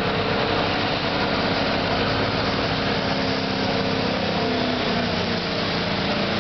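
1996 Ford Power Stroke 7.3-litre turbo-diesel V8 running hard at full throttle while pulling a sled. Its engine note sags slightly about five seconds in.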